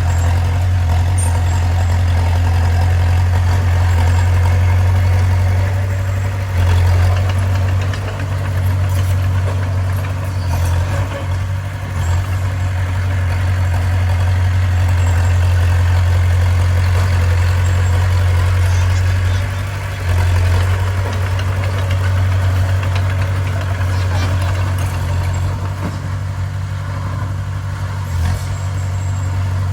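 Heavy diesel engine of a bulldozer running steadily, a strong low drone with a few brief dips in level.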